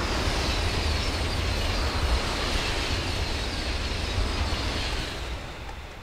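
A TGV high-speed train passing below, a loud steady rushing with a deep rumble. It fades away about five seconds in.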